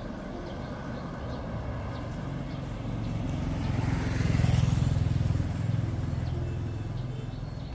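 A motor vehicle passing along the road: a low engine hum that builds to its loudest about four and a half seconds in, then fades as it goes by.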